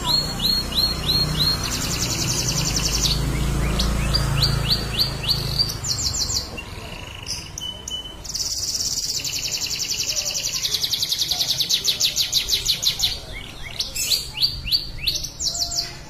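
Domestic canary singing a long rolling song, made of fast high trills alternating with runs of quick, repeated rising whistled notes, with brief breaks between phrases.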